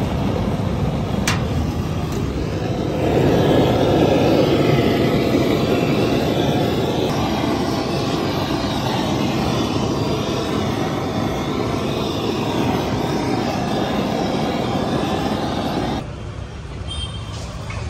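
Handheld gas blowtorch burning with a steady rushing hiss as its flame browns flatbreads on a steel tray. It gets louder about three seconds in and cuts off suddenly near the end when the torch is shut off.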